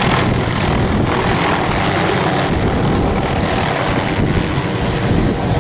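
Hughes 500D helicopter lifting off and climbing away, its turboshaft engine and five-blade main rotor running loud and steady, with wind on the microphone.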